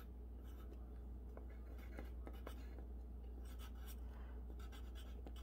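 Pencil writing on a paper card: faint, scratchy strokes as letters are formed.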